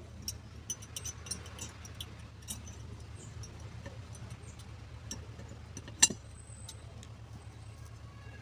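Small metallic clicks and taps as a Bosch alternator's copper-wound stator is fitted by hand into its aluminium end housing, with one sharper click about six seconds in. A steady low hum runs underneath.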